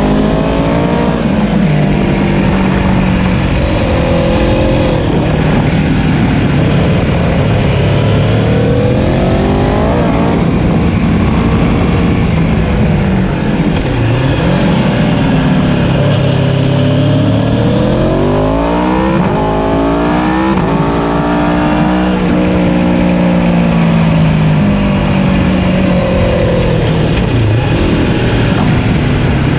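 Aprilia Tuono motorcycle engine, heard close up from the tail of the bike, revving hard out of the bends. Its pitch climbs in repeated sweeps and drops at each gear change, over steady wind and road noise.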